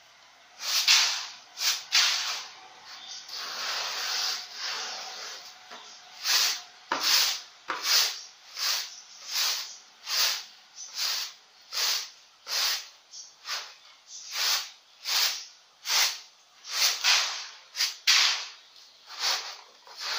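Rice being winnowed on a muram (winnowing tray) to separate it from the bran: the grain swishes and rattles across the tray with each toss. The tosses are irregular at first, then settle about six seconds in into a steady rhythm of roughly three every two seconds.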